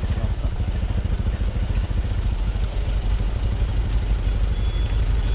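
Motorcycle engine running steadily at low speed, a close, even low rumble with rapid firing pulses.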